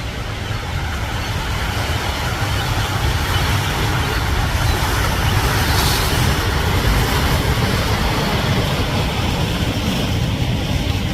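Strong wind rumbling and buffeting on the microphone over waves washing against a rocky islet, a steady roar that swells louder around the middle.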